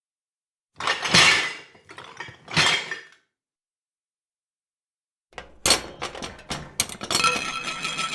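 Rummaging through a pile of dishes and other hard objects: two short clattering bursts, then after a pause a quick run of clinks and knocks leading into a longer rattle with ringing clinks.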